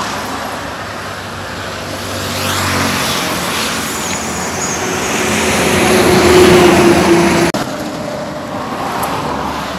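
Highway traffic: a motor vehicle passing close by, its engine and road noise swelling to a peak and then cutting off abruptly about three-quarters of the way through.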